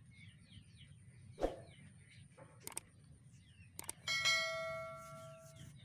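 Notification-bell chime sound effect from a subscribe-button animation. It rings out suddenly about four seconds in, several pitches together, and fades over about a second and a half. Before it come a soft thump and two sharp clicks, with faint chirping throughout.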